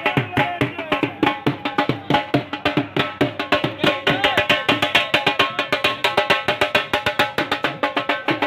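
Music with fast, steady drumming and a melodic line over it.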